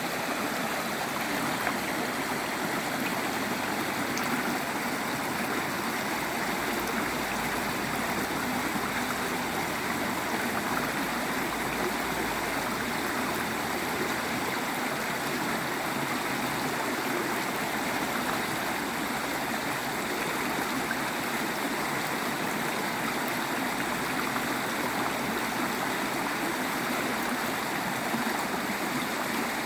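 A river flowing: a steady, unbroken rush of running water.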